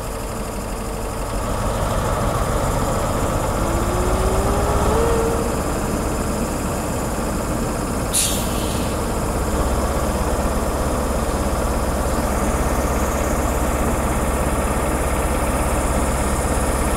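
Diesel engine of a Class 43 HST power car idling with a steady rumble. About four seconds in a whine rises in pitch, a short sharp hiss of air comes about eight seconds in, and the engine grows a little louder around ten seconds.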